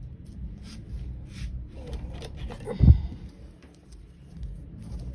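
Spoon scraping banana batter out of a bowl into a baking mold in a series of short scratchy strokes, with one dull thump about three seconds in.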